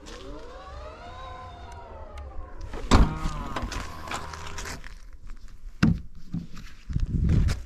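A small electric motor whining, its pitch rising then falling over about two and a half seconds, then a sharp knock about three seconds in, followed by a shorter whine that drops in pitch and holds briefly.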